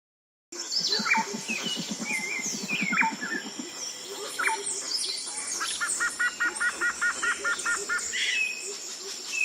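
Jungle ambience: many birds calling and chirping over a steady high insect drone, starting about half a second in. For the first few seconds a low, fast pulsing call runs underneath, and near the middle one bird repeats a short two-note call about five times a second.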